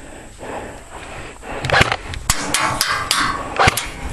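Airsoft gunfire: about eight sharp, irregularly spaced cracks, starting about a second and a half in after a quieter stretch.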